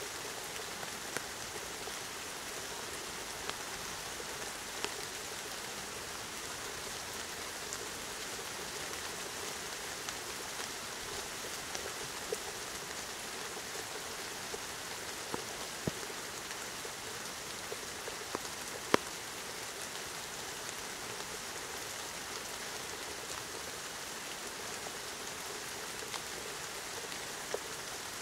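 Steady rain falling, with scattered sharp drip taps on a hard surface; one louder tap about two-thirds of the way through.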